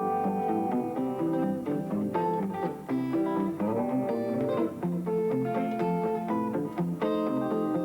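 Guitar played thumbpicking style: a plucked melody over a thumbed bass line, with a sliding note about halfway through.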